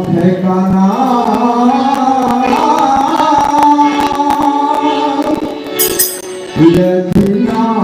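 Devotional bhajan: harmonium playing sustained chords with group singing, and a dholak drum beating the rhythm. The music drops briefly about six seconds in, then carries on.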